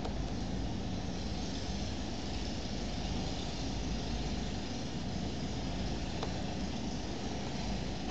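Steady low hum with a light hiss: background room noise, with one faint click about six seconds in.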